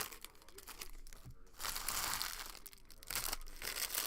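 Foil trading-card pack wrappers being torn open and crinkled, in three loud crackling bursts: right at the start, at about two seconds, and again near the end.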